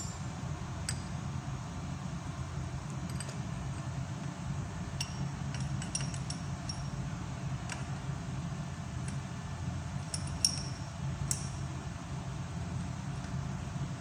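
Ball faceting machine running with a steady low hum, with scattered light metallic clinks, the loudest about ten and a half seconds in.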